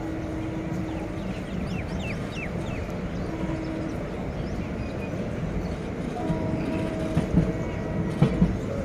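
Passenger train running slowly, heard from the open coach door: a steady rumble of wheels on rails. A few sharp knocks near the end come as the wheels cross rail joints.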